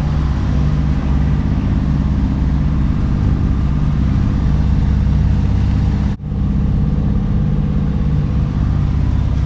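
Sailboat's inboard diesel engine running steadily under way: a low, even drone that briefly drops out about six seconds in.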